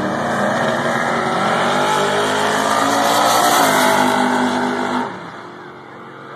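Drag-race cars launching and accelerating hard down the strip, engines rising in pitch through several gear changes. Loudest as they pass about four seconds in, then dropping off sharply about a second later.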